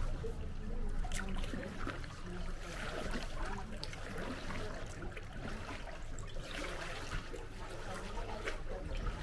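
Kayak paddling: water splashing and dripping off double-bladed paddles as they dip stroke after stroke, over a steady low rumble.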